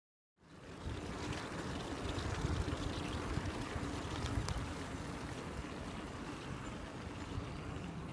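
Wind rushing over the microphone with the rolling noise of a bicycle and child trailer on tarmac, starting about half a second in and steady after that.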